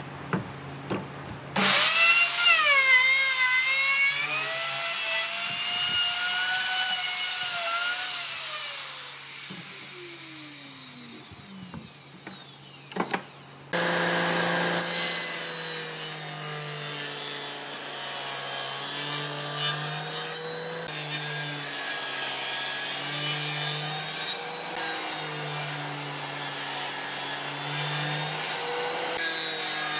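A power tool's motor runs under load with a wavering pitch, then winds down to a stop over a few seconds. From about halfway, a table saw runs and rips a wooden board, the blade's sound shifting as the wood is fed through.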